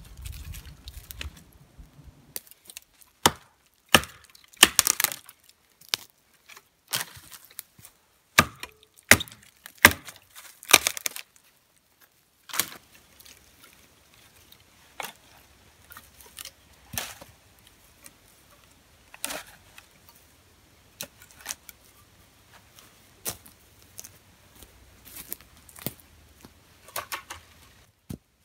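Hatchet chopping dry wood: sharp, irregular cracks and knocks, loudest in the first half. Later, quieter snaps and clatter of dry sticks being broken and handled.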